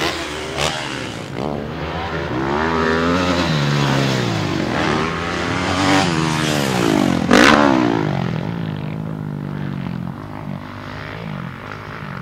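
Motocross dirt bike engine revving hard on the track, its pitch climbing and dropping again and again as the rider throttles and shifts through jumps and turns. It is loudest about seven seconds in, where the pitch sweeps sharply as the bike goes by close, then fades somewhat toward the end.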